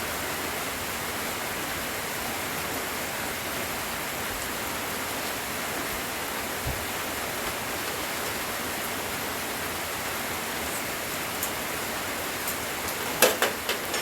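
Steady hiss of light rain falling. Near the end, a quick cluster of sharp clicks or knocks.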